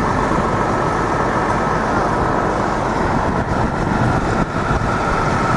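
Steady city traffic noise: a continuous rumble and hiss of passing vehicles, with a faint high steady whine running under it.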